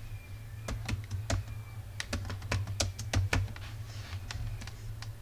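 Typing on a computer keyboard: a string of irregular key clicks, bunched most densely about two to three and a half seconds in, over a steady low hum.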